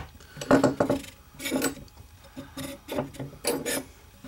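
Steel magazine tube of a post-64 Winchester 94 being wiggled loose and slid forward out from under the barrel, giving a string of metallic clicks, scrapes and knocks, loudest about half a second in.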